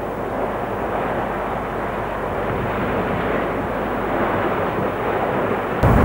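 Concrete colliery winding towers being demolished: a steady rushing rumble of collapsing masonry and falling debris. Just before the end a louder, deeper rumble starts abruptly.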